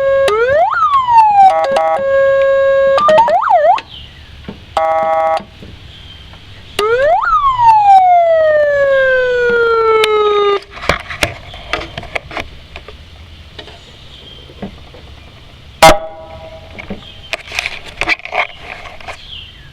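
100-watt electronic siren sounding through its speaker: a steady tone, quick up-and-down sweeps, a short steady blast, then a sharp rise that falls away in one long slow glide. It cuts off about halfway through, leaving scattered clicks and one loud click near the end.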